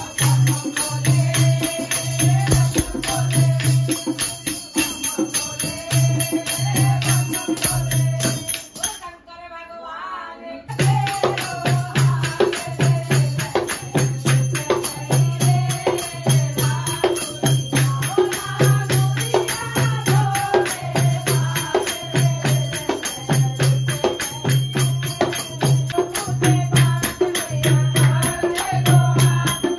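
A group of women singing a Hindu devotional kirtan bhajan together, with hand clapping and jingling hand percussion over a steady low beat. The music breaks off briefly about nine seconds in, then carries on.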